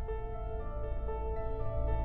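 Slow ambient intro music: held notes that shift in pitch over a steady deep drone.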